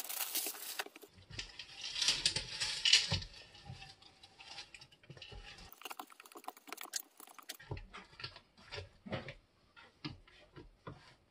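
Noodles and broth being stirred with a spoon in an Instant Pot's stainless steel inner pot: scraping and rustling for the first few seconds, then quieter scattered taps and clicks.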